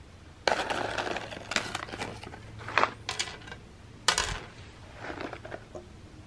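Dry cat treats clicking and rattling on a hard plastic pizza-printed platter as a hand shifts them and the platter, which turns on its base. There are several short clattering scrapes, the sharpest one about four seconds in.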